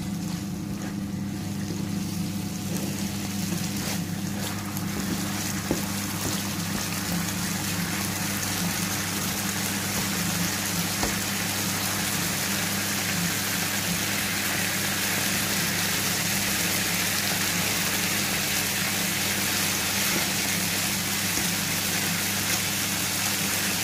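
Sardines in tomato sauce sizzling and bubbling in a frying pan, growing a little louder over time, over a steady low hum.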